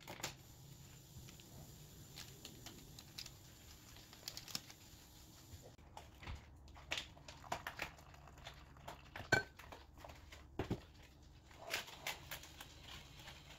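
Faint kitchen handling sounds: scattered clicks and clinks of a glass measuring cup, kettle and ceramic bowl being set down and handled, with some rustling, over a low steady hum. One clink a little after the middle rings briefly.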